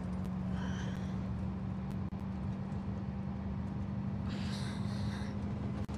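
Steady engine hum and road noise inside a moving car's cabin, with two brief high chirps, one about half a second in and another around four seconds in.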